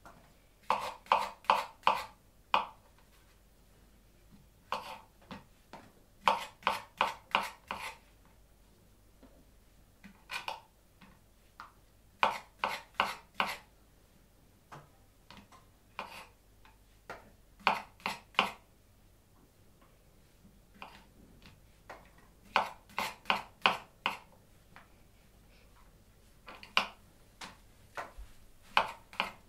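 Kitchen knife slicing brown mushrooms on a cutting board: runs of four to six quick, sharp taps as the blade goes through and strikes the board, with short pauses between the runs.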